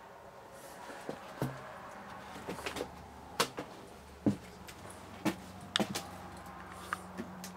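Footsteps on a floor littered with broken plaster and debris: irregular sharp crunches and knocks, over a steady low hum.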